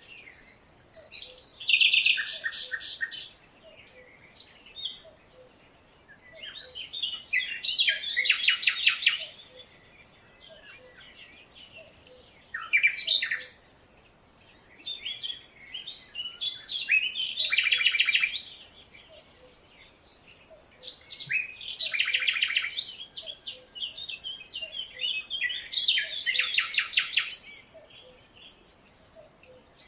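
Birds singing: a loud song phrase of rapid repeated notes comes back every four to five seconds, with scattered chirps and calls between.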